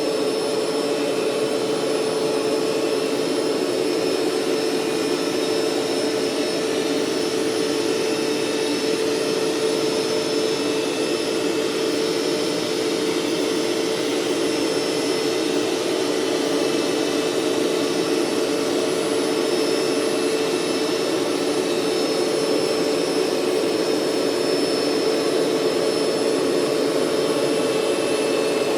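Hoover SteamVac SpinScrub 50 upright carpet cleaner running steadily, its motor whining at one pitch as it rinses the carpet and sucks the water back up.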